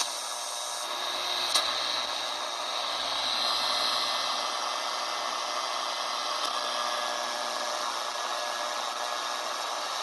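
Shortwave static from a QFX portable receiver's speaker: a steady hiss heard while tuned between stations, with a faint click about a second and a half in.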